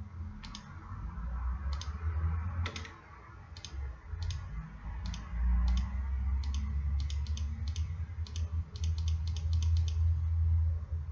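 Computer mouse clicking, one click at a time, spaced out at first and then quicker, several a second near the end. A low rumble runs underneath.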